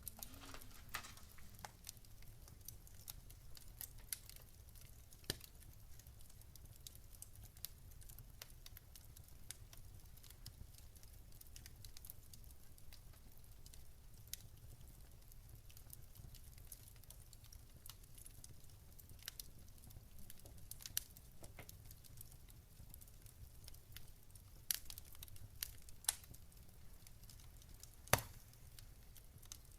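Fire crackling quietly: scattered small pops and snaps at irregular times, with a sharper pop near the end, over a steady low rumble.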